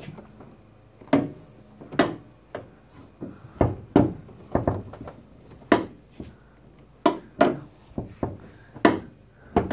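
Dodge Challenger R/T's hood being tugged up and down against its latch: over a dozen sharp metal thunks at irregular intervals while someone struggles to release it.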